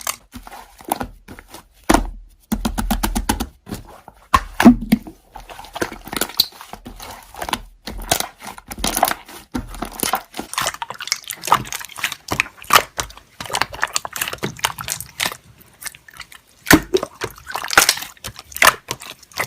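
Slime being squeezed, poked and stretched by hand: a dense, irregular run of sticky clicks and crackles, loudest near the end.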